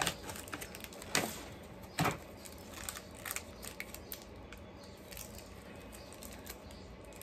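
Snack packaging being handled: scattered rustles and light clicks of plastic wrappers, with the sharpest ones near the start and at about one and two seconds in.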